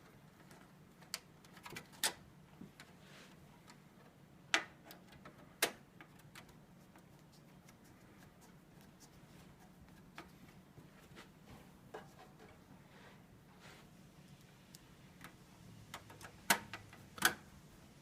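Scattered sharp metal clicks and taps from refitting a computer case's expansion-slot bracket, with a louder pair about five seconds in and another pair near the end, over a faint steady hum.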